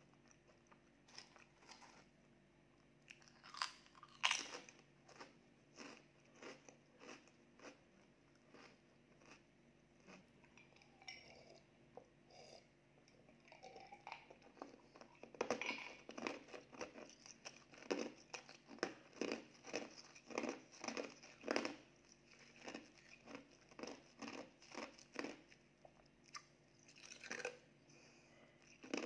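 Close-up crunching and chewing of purple ube sweet potato chips: a loud bite about four seconds in, then a dense run of crunchy chewing through the middle, thinning out near the end.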